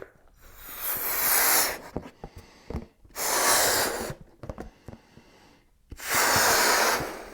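A person blowing hard into a balloon: three long, forceful breaths, each lasting about a second or more, with short pauses between.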